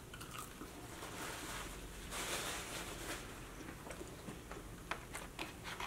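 Faint chewing and mouth sounds of a person eating French fries, with a few soft clicks near the end.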